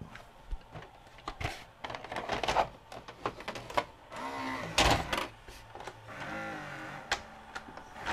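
A VHS cassette going into a Sharp VC-H972 VCR's front cassette housing: hand-handling clicks and plastic clunks, then the small cassette-loading motor whirring in short spells around the middle as the housing draws the tape in.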